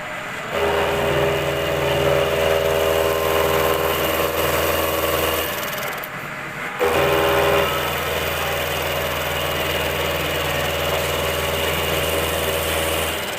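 Vertical milling machine running with a steady mechanical hum. It winds down about five and a half seconds in and starts again just over a second later.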